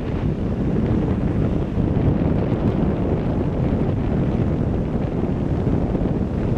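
Strong wind buffeting the microphone in a steady low rumble, with ocean surf beneath it.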